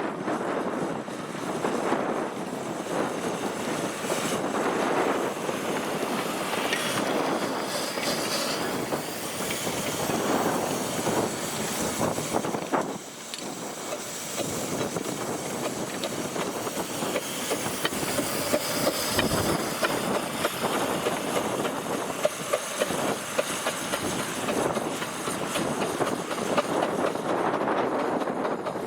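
A 15-inch gauge miniature train running on the line, with wheels clattering over rail joints in a steady stream of sharp clicks over a dense running noise that dips briefly near the middle.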